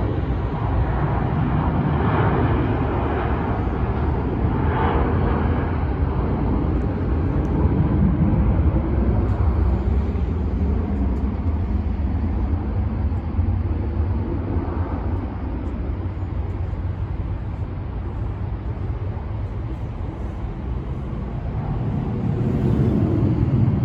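Jet aircraft engines rumbling steadily, easing slightly and then growing louder near the end.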